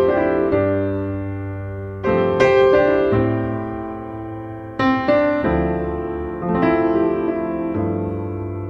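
Background piano music: slow chords struck every second or two, each left to ring and die away.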